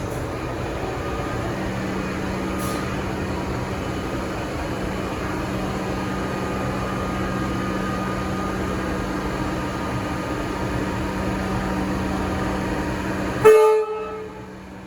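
Alstom Comeng electric train running with a steady hum, then a short, loud toot on its three-chime horn near the end, several tones sounding together. The running noise falls away sharply right after the toot.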